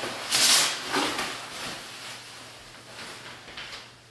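Plastic shipping wrap crinkling and rustling as it is pulled off and bunched up, loudest in the first second, then a few softer rustles that fade.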